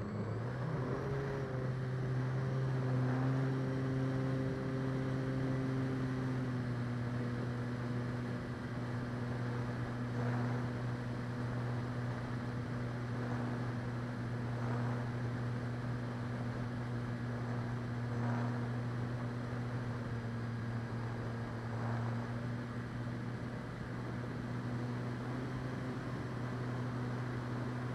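Electric motor and propeller of an E-flite Clipped Wing Cub RC plane, rising briefly in pitch at the start as it spools up for takeoff, then running at a steady pitch through the climb, with a steady rush of air over the onboard microphone.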